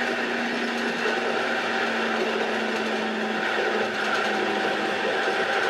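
Train running along the track, heard inside the driver's cab: a steady rumble and rattle with a motor whine, whose low note sinks slightly and fades about three seconds in.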